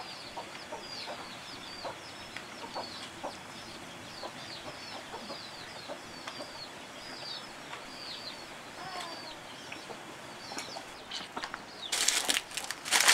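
Farmyard birds: a small bird chirps over and over, about two short high chirps a second, with faint ticks under it and a chicken clucking briefly about nine seconds in. From about twelve seconds in, much louder rustling and crackling of dry leaf strips being handled.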